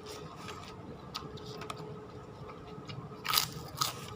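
Close-up chewing of a mouthful of ketoprak. Two louder crunches come about three and a half seconds in.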